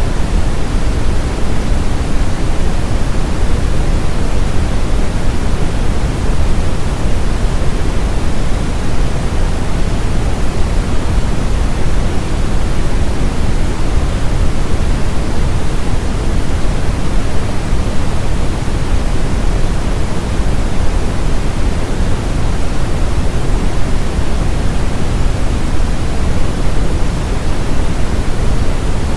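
Brown noise: a steady, deep rushing hiss with most of its weight in the low end, unchanging throughout.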